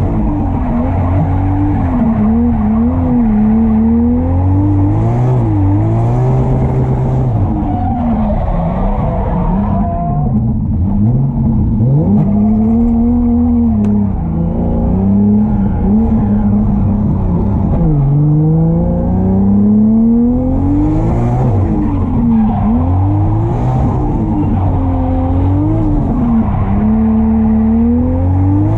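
Drift car's engine at high revs, its pitch repeatedly climbing under throttle and dropping off, over a steady rushing noise.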